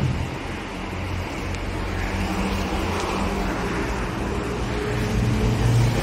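Steady low hum and rumble of background noise, growing a little louder near the end.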